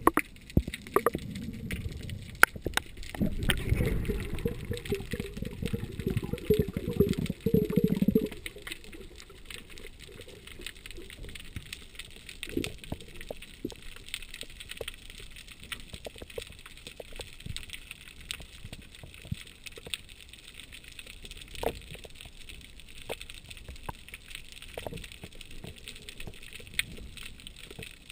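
Underwater sound through an action camera's waterproof housing during a free dive. For about the first eight seconds there is a loud low rushing with dense crackle as water moves past the housing. It then drops to a quieter steady underwater hiss with scattered sharp clicks.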